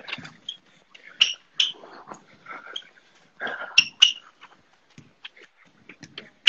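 Fast footwork drill: sneakers squeaking and tapping on a slippery floor in short, irregular bursts.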